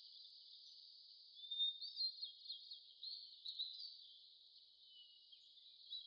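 Faint, high-pitched twittering song of a horned lark, a jumble of short notes over a steady hiss, busiest from about one and a half to four seconds in.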